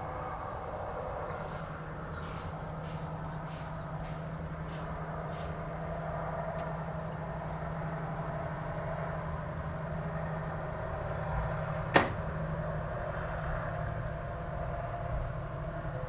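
A steady low hum and rumble, with faint short high ticks during the first six seconds and a single sharp click about twelve seconds in.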